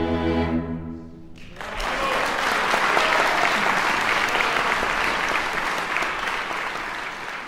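A string quartet of two violins, viola and cello holds its final chord, which fades out about a second and a half in. Then the audience breaks into sustained applause, tapering off near the end.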